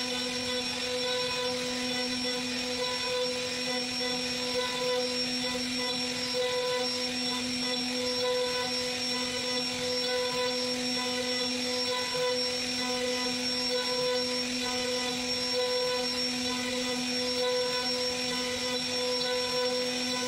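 CNC router spindle whining at a steady high speed as its bit carves into a wooden door panel, a constant pitched hum with a hiss of cutting over it.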